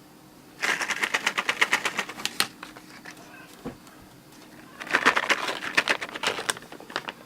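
Dry cat treats rattled in a container in two bursts of rapid clicking, each about two seconds long, the second starting about five seconds in.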